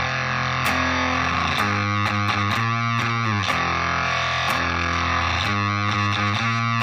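Electric guitar (Gibson SG '61 reissue, neck pickup) through a Zvex Fuzz Factory fuzz pedal and a Roland Cube 30 amp, playing thick, heavily fuzzed held notes. The notes change about once a second, and the pitch slides down between some of them.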